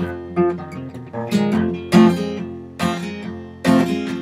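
Solo acoustic guitar, capoed, playing an instrumental country-blues passage: picked bass notes with sharp strummed accents roughly every second.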